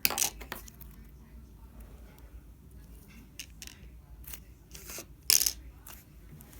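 Thick slime being poked with fingers, giving scattered sticky pops and clicks; a cluster at the start and the loudest pop about five seconds in.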